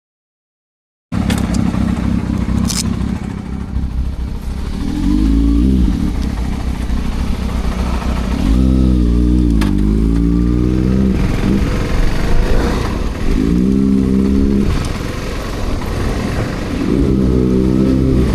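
Kawasaki ZX-6R inline-four sport bike engine running, starting abruptly about a second in. Its pitch rises and drops four times as the revs climb and fall.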